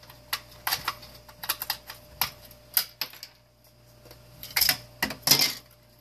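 Irregular sharp plastic clicks and knocks from a space heater's plastic control panel being handled and taken apart, with a louder run of cracks and clatter near the end.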